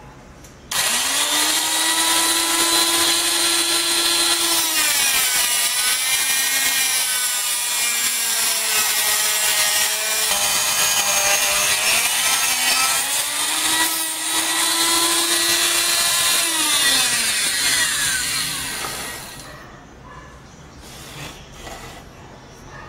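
Handheld electric rotary tool with an abrasive cut-off disc starting up and cutting metal clamped in a vise, with a loud grinding hiss. The motor's whine sags in pitch as the disc bites and recovers, twice. It spins down about three-quarters of the way through, followed by a few light clicks.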